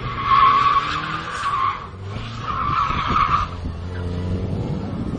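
Car tyres screeching as a sedan drifts sideways through a bend, in two long squeals with a short break between them, its engine running underneath.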